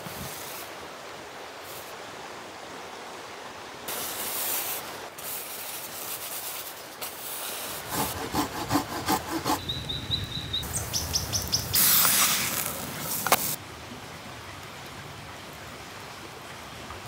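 Rubbing and rustling of a frost-covered nylon tent fly, in several separate stretches with a louder rustle about twelve seconds in. A few brief high bird chirps about ten seconds in.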